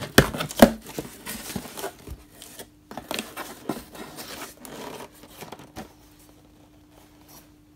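Cardboard shipping box being opened by hand: the taped flaps pulled apart with two sharp tearing snaps right at the start, then cardboard rustling and scraping as the packaged contents are handled and lifted out, dying down after about six seconds.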